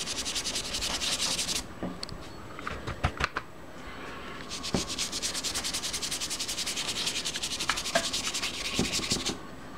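Rapid back-and-forth rubbing of pigment powder into drawing paper, a dry scrubbing at about eight strokes a second. It comes in two bouts: a short one at the start, and a longer one from about halfway until just before the end, with a few light taps in the pause between them.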